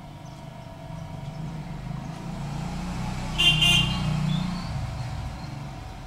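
A road vehicle passing, its low rumble building and then fading, with a short high-pitched horn toot about three and a half seconds in.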